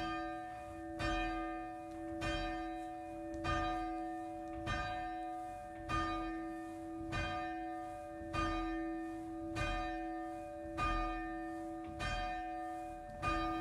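Church bells ringing in about a dozen evenly spaced strokes, a little over a second apart, each stroke ringing on into the next.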